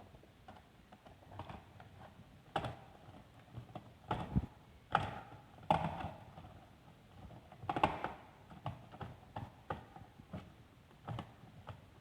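Irregular clicks and light knocks of hands and a screwdriver working on a plastic electrical socket, fitting wires and tightening its terminal screws.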